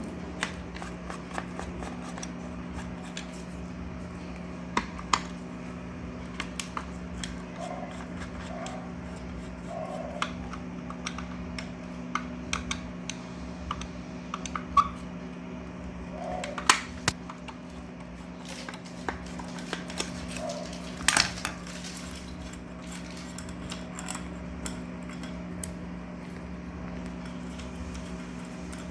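Screwdriver undoing the three screws on a ceiling fan's motor housing: scattered light metallic clicks and clinks of tool, screws and casing, a few sharper knocks among them, over a steady low hum.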